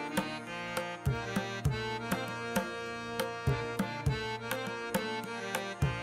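Background music: drum strokes in a steady rhythm over sustained melodic tones.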